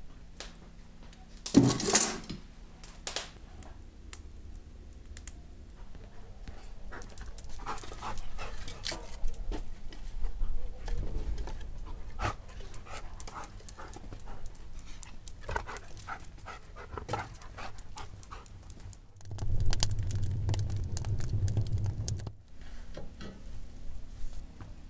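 Split firewood logs knocking and clattering together as they are pulled from a woodpile and gathered in the arms, a run of irregular wooden clicks and knocks, with a dog panting.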